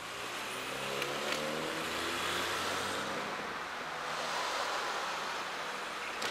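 A motor vehicle passing on the road, its engine hum sliding slightly down in pitch and fading over the first three seconds, over steady outdoor noise of wind and surf.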